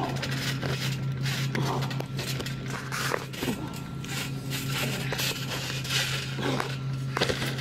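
Scuffing and scraping of wrestlers moving, kicking and landing on a trampoline mat, with irregular sharp knocks and crackles over a steady low hum.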